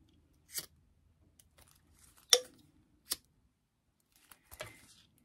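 A few sharp clicks, the loudest a little over two seconds in, and a short rasp near the end, as a handheld lighter is flicked to singe loose thread ends on a vinyl ID holder.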